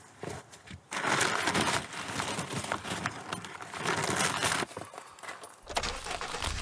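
A brown paper bag crinkling and rustling as hands rummage inside it, then a crinkly plastic snack packet being handled. A low steady hum comes in near the end.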